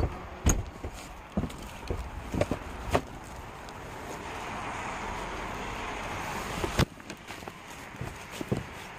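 Footsteps and knocks about a second apart, then a car passing on the road as a steady tyre rush that swells for about three seconds and cuts off suddenly. A few more footsteps follow near the end.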